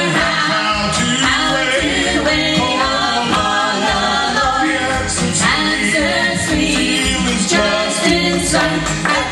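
Music: a gospel vocal group singing in harmony, voices layered over a steady accompaniment.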